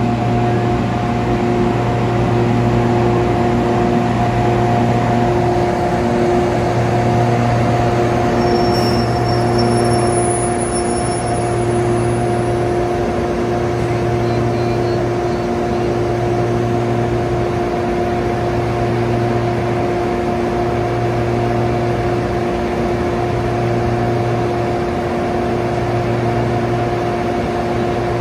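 Class 92 electric locomotive drawing slowly into the platform and standing, giving a steady electrical hum on two pitches over a low drone that swells and dips every couple of seconds.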